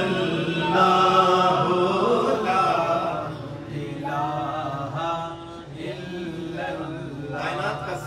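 A man chanting an unaccompanied Islamic devotional recitation into a microphone, holding long wavering notes that glide between pitches. The first phrase is the loudest; softer phrases follow.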